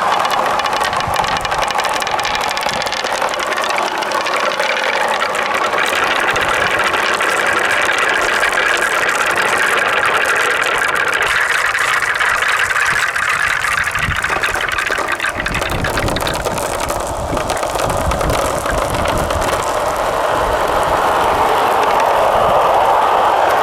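Marbles rolling and clattering down wooden slopes and plastic rain-gutter rails in a continuous rattling run, with a low rumble joining about two-thirds of the way through.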